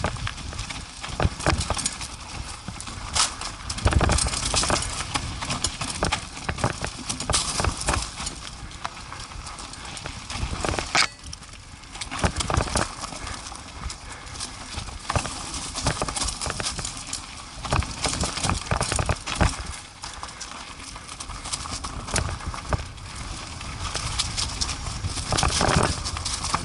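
ATV jolting along a rough dirt trail: a dense run of irregular knocks, clatters and rattles over constant noise.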